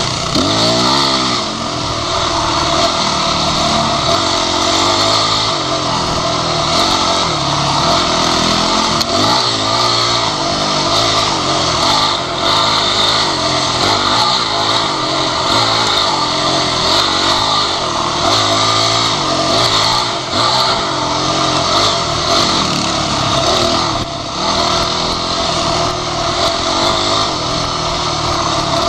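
Dirt bike engine running hard along a rough trail, its pitch rising and falling again and again as the throttle is opened and closed, heard close up from the rider's own bike over a steady hiss.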